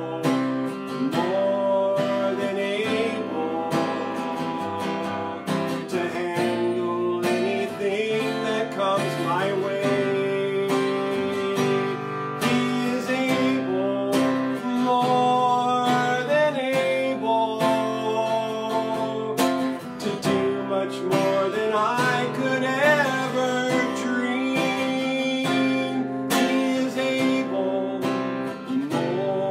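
A man singing a slow worship song, accompanying himself by strumming an acoustic guitar.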